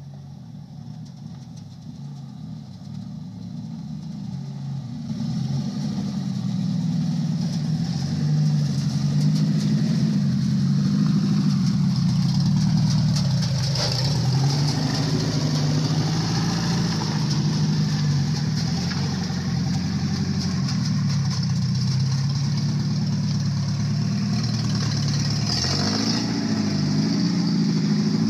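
Homemade mini tractor running on a car engine taken from a 1976 model car, driving past. The engine grows louder over the first several seconds and then runs steadily, its pitch wavering near the end.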